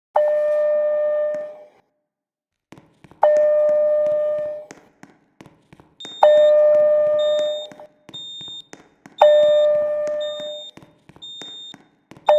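School fire alarm sounding a single chime-like tone every three seconds. Each tone strikes sharply and fades over about a second and a half. From about six seconds in, a shorter, high-pitched beep repeats about once a second alongside it.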